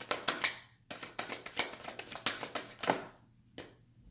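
Tarot cards being shuffled by hand: a quick run of crisp flicks and clicks that stops about three seconds in, followed by a single light tap as a card is set down on the wooden table.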